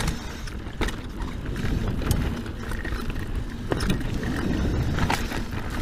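Scott Genius full-suspension mountain bike rolling down a rough dirt singletrack: steady tyre rumble over dirt and rocks, with a sharp knock or rattle from the bike every second or so.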